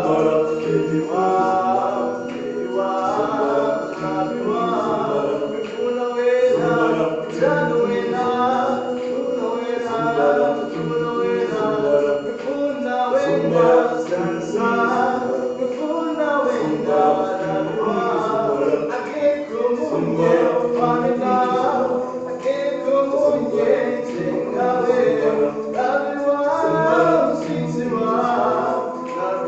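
A cappella choir singing: several voices together without instruments, continuing throughout.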